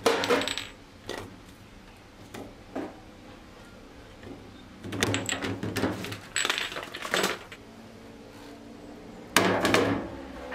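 Kitchen handling clatter: spice jars knocking and clinking in a plastic basket on a stainless steel counter, in several short bursts of clicks. A plate is set down on the steel counter about nine seconds in with the loudest clack.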